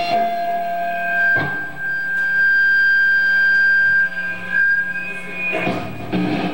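Live band playing long, sustained high notes over a low drone. One clear note is held steady for about three seconds in the middle. A couple of short knocks come about a second and a half in and again near the end.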